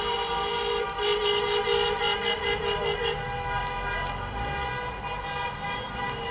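Car horns sounding together in a steady, held chord that pulses rapidly for about two seconds starting a second in, over the low running of small cars' engines passing slowly by.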